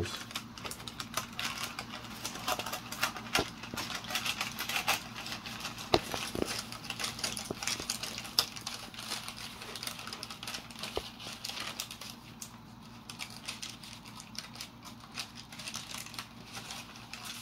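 Paper plans crinkling and rustling in the hands, with many small irregular crackles and ticks, as the paper is worked free of a glued balsa-stick rudder frame. The crackling is busiest in the first half and thins out later.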